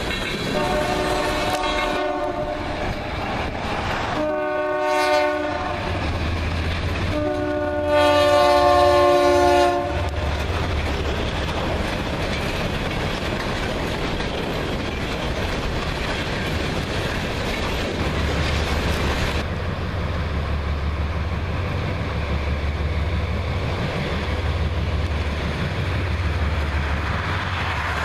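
Diesel freight locomotives' multi-note air horn blowing three times, two short blasts and then a long, loudest one, a grade-crossing warning. After it stops, the locomotives' low engine rumble and the rattle of wheels on rail carry on as the train passes.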